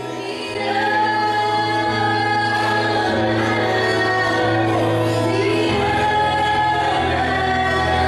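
Slow Christian worship music: voices singing over long held chords, with the bass note changing every second or two.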